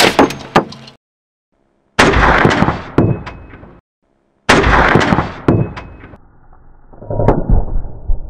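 .50 BMG rifle shots: one sharp report at the start, then the same shot twice more after short silent gaps, each loud blast dying away slowly, and a duller, muffled report near the end. The round goes through a pressure cooker of heated cheese without making it explode.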